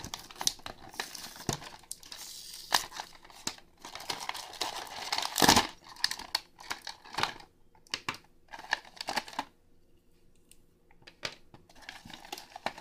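Plastic-and-card blister pack of a toy being opened by hand: irregular crinkling and crackling of the clear plastic, with a loud tearing crackle about halfway through and a quieter spell near the end.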